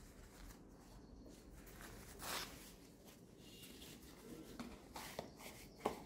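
Faint paper-handling sounds: a paper towel rustling, with one soft swish about two seconds in and a few light taps near the end as it is pressed into a plastic container.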